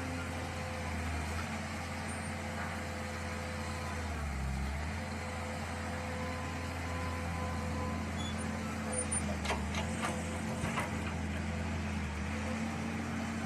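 Mini excavator running steadily, its engine and hydraulics giving a constant hum with a faint whine above it. A few short knocks or scrapes come about two-thirds of the way in, as the machine digs.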